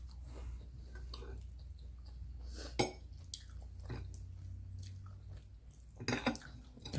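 A person chewing spaghetti close to the microphone: soft wet mouth sounds and scattered clicks, with one sharper click about three seconds in, over a low steady hum.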